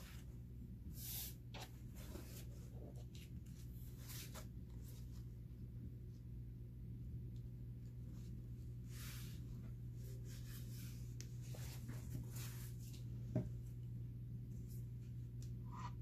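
Soft, scattered rustles and swishes of a paper towel and a stencil sheet being handled and pressed flat onto a wooden board, with a small tick about 13 seconds in, over a steady low hum.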